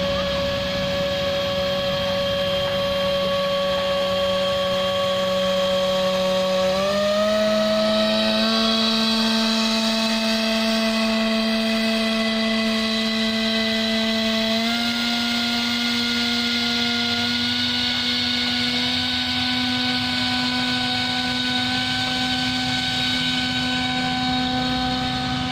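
Electric motor of a small RC boat whining steadily, its pitch stepping up twice, about seven seconds in and again about fifteen seconds in.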